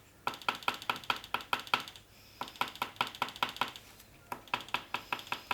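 Orange oil pastel tapped quickly against paper to make dots for flowers: rapid, even taps, about six a second, in three runs with short pauses between.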